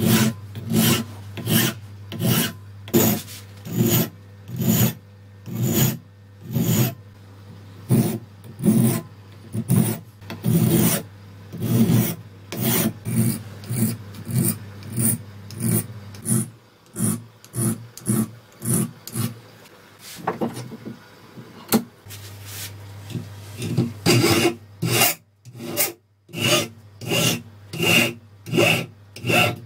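Flat hand file rasping across the edge of a metal marking-knife blade clamped in a bench vise, in regular push strokes about one and a half a second. Near the end the strokes come quicker and take on a ringing edge.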